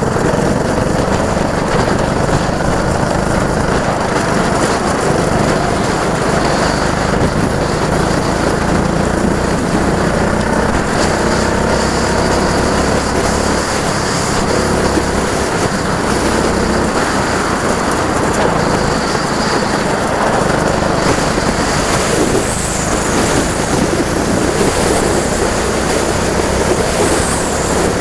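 Go-kart engines running continuously on track, a steady loud engine noise with faint pitch shifts as the karts speed up and slow.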